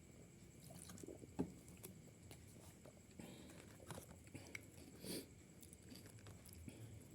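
Faint close-up chewing and eating sounds of a boxed rice meal, with scattered soft clicks and smacks, one sharper click about one and a half seconds in.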